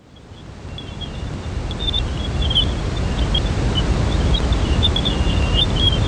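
Jupiter sound made from spacecraft data: a steady rushing hiss with a deep rumble and scattered high crackles, fading in over the first two seconds.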